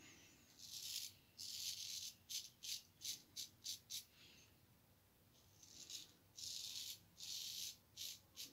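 Straight razor scraping lathered stubble off the neck in a series of short strokes. After two longer scrapes comes a quick run of about seven short ones, then a pause, then a few longer strokes.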